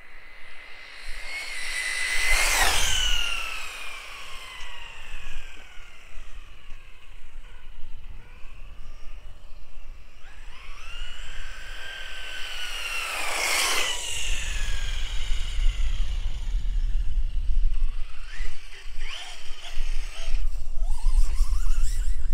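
Reely Eraser electric RC car speeding past twice on asphalt, about two seconds in and again near the middle. Each time its motor whine rises as it comes and drops steeply in pitch as it goes by. A low rumble runs through the second half.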